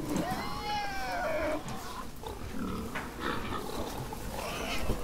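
Pigs squealing and grunting: one drawn-out squeal that rises and falls over the first second and a half, then shorter, lower grunts.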